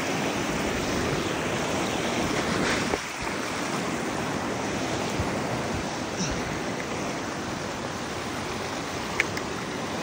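Shallow creek water rushing steadily over a small drop past fallen logs, a little quieter after about three seconds, with a single sharp click near the end.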